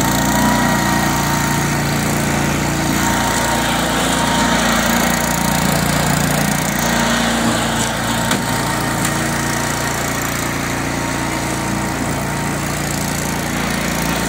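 Hover lawn mower running at full speed as it floats on its air cushion over concrete: a steady small-engine drone with a high whine. The pitch rises and settles right at the start, then holds steady.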